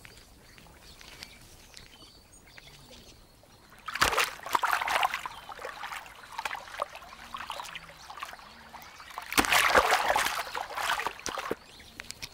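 Two bursts of wet splashing and sloshing, each opening with a sharp knock: one about four seconds in and a longer one near the end, with faint background between.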